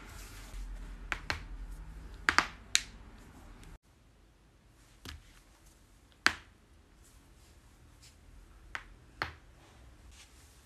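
Joints cracking: a quick run of sharp pops about a second to three seconds in, then single pops spaced a few seconds apart, the loudest a little past the middle.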